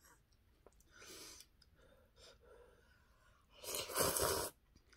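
A person slurping a mouthful of instant ramyeon noodles, one loud airy slurp lasting about a second near the end, after a fainter one about a second in.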